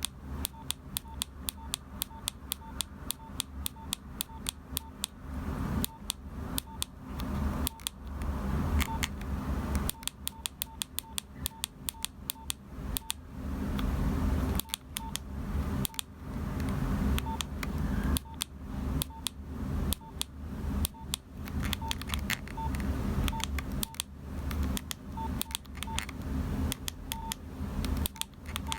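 Nokia 3395 keypad being pressed repeatedly, each press giving a short key beep with a click, about two to three a second with brief pauses, over a low hum.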